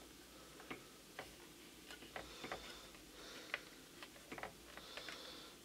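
Faint, irregular clicks and taps of fingers working the plastic knob and switches of a small novelty Christmas record player, which is not yet switched on while the power button is being sought.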